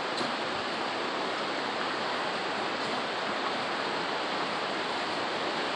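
Steady, even rushing noise with no breaks or changes, of the kind running water makes.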